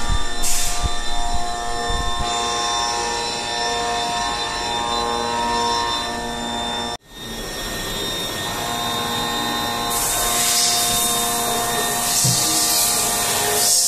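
2014 Haas VF-3 CNC vertical machining center running: a steady whine of motors and cooling fans with several steady tones, and a few low knocks in the first two seconds. About three seconds before the end, a loud high hiss joins in.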